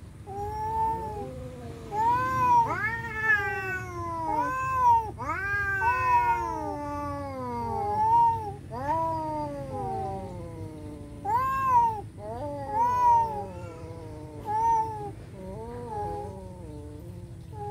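Two orange tabby cats caterwauling at each other in a standoff: a long run of drawn-out, wavering yowls that rise and fall in pitch, at times overlapping, the threatening cries cats trade before a fight.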